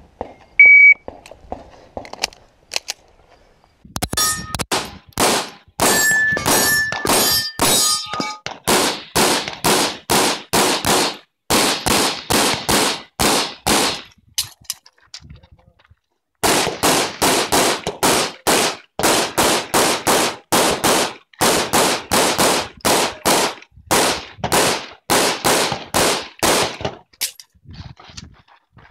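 A shot timer's single start beep, then a 9mm Open-division competition pistol firing fast strings of shots, several a second. Over the first few seconds of shooting, steel targets ring when hit. A pause of about two seconds comes midway before the shooting resumes.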